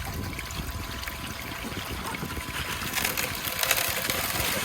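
Water trickling and pouring steadily through a highbanker sluice fed by a closed-loop water system, turning hissier and louder from about halfway in.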